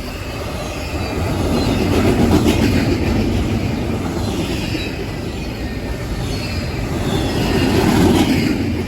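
Long CSX intermodal freight train rolling past at close range: a steady rumble of wheels on rail that swells twice, with faint high wheel squeals.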